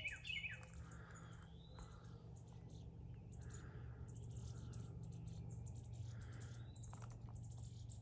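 Wild birds calling in woodland: a quick run of chirps at the start, then short buzzy calls repeated every two to three seconds, with a couple of slurred whistles between.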